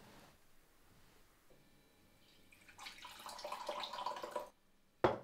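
Liquid pouring into a mug for about two seconds, stopping abruptly, then a single sharp click near the end.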